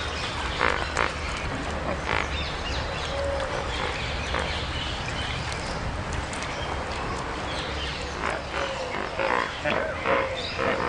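A flock of flamingos calling together: a constant gabble of overlapping honks and grunts, with a burst of louder honking in the last few seconds, the noise of a group courtship display.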